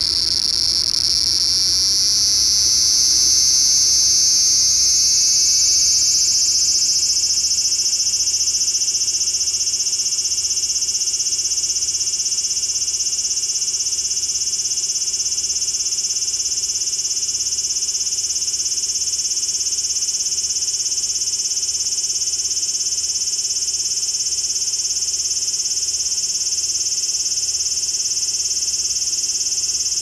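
A cicada singing on the ground close by: one continuous high, buzzing drone. It climbs slightly in pitch and is loudest over the first several seconds, then holds steady.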